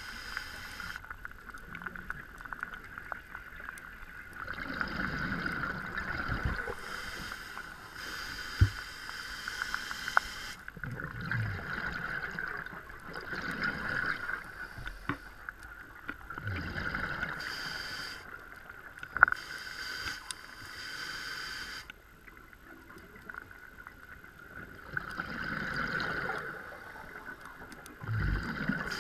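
Scuba diver breathing through a regulator underwater. Exhaled bubbles gurgle in swells every few seconds over a steady faint whine, with a few sharp clicks.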